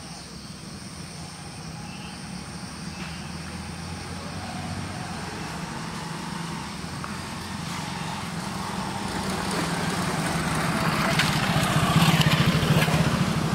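A motor vehicle's engine running, growing steadily louder as it draws near, loudest near the end.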